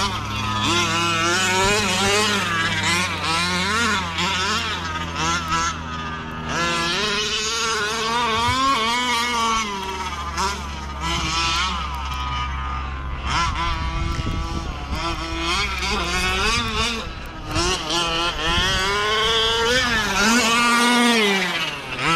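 Two-stroke petrol engine of a 1/5-scale RC car revving up and down as it is driven, its pitch rising and falling constantly.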